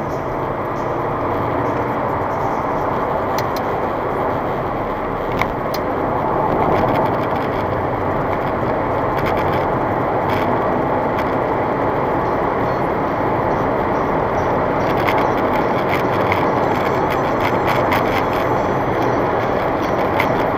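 Car travelling at highway speed, heard from inside the cabin: a steady rush of tyre and wind noise with the engine under it as the car overtakes a truck and accelerates to about 130 km/h. A single sharp knock about five seconds in.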